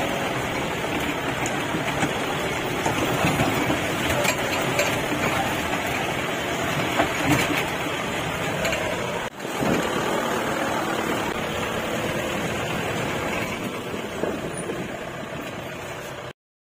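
Jeep driving on an off-road trail: steady engine and road noise with no clear rhythm. It dips briefly about nine seconds in and cuts off suddenly near the end.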